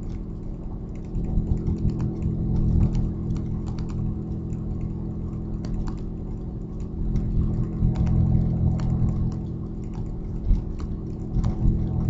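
Audi A4 2.8 12-valve V6 engine idling, with fast, irregular ticking over the low engine note. The ticking comes from an exhaust leak just after the flex pipe and before the catalytic converter, which leaves one bank of the engine open.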